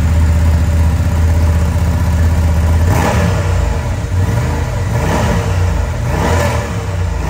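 Honda Transalp 750's 755 cc parallel-twin engine on its stock (factory) exhaust, idling steadily and then revved briefly about three times from around three seconds in, at roughly 86–87 dB measured at the pillion seat. It is heard in an enclosed concrete garage.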